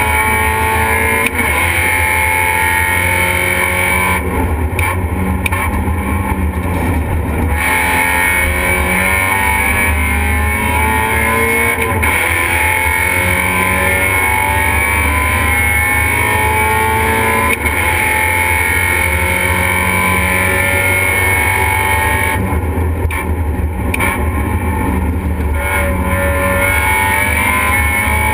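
Race car engine heard loud from inside the stripped cockpit, pulling hard through the gears: its pitch climbs and drops back again several times at the shifts, and twice it eases off for a few seconds.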